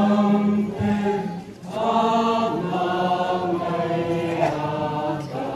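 Many voices singing a slow hymn together, holding each note for about a second, with a brief breath pause about one and a half seconds in.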